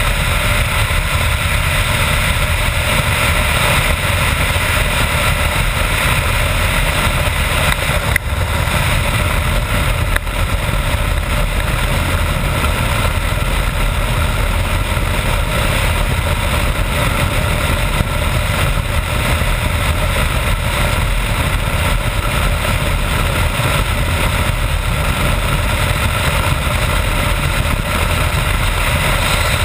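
BMW F650GS Dakar's single-cylinder engine running steadily at highway speed, mixed with steady wind rush on the bike-mounted microphone. A brief dip in level about eight seconds in.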